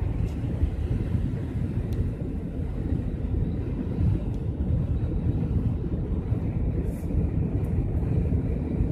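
Steady low rumble of road and wind noise inside a moving car.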